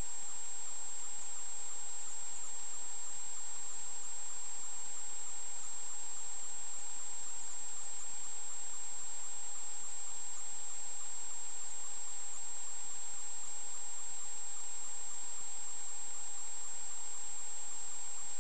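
Steady high-pitched electronic whine over a constant hiss, with a fainter, lower tone beneath it; nothing changes throughout.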